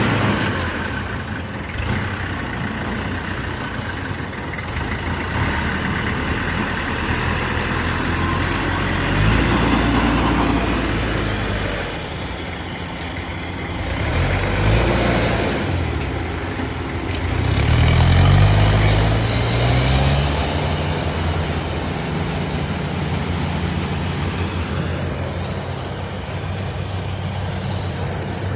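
Engines of farm machinery, a rice-hauling tractor and a combine harvester, running steadily and revving up and down several times, most strongly about two-thirds of the way through.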